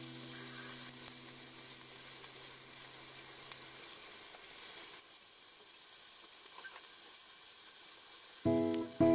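Pork-wrapped asparagus rolls sizzling steadily in oil in a square rolled-omelette pan over a gas flame, the hiss dropping a little about five seconds in.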